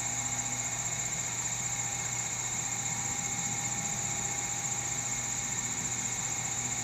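Stepper motor of a self-centering turntable rotary axis whining at one steady pitch as it turns a toothpick during a rotary test, then winding down at the very end. Underneath is a steady high-pitched hiss.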